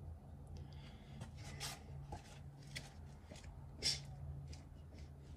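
Faint rustling and rubbing, with brief scrapes about two seconds and four seconds in, over a low steady hum.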